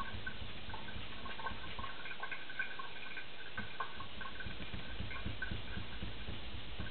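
Knife blade being worked back and forth on a wet Japanese natural whetstone, polishing toward a kasumi finish: a steady, irregular run of small scraping ticks.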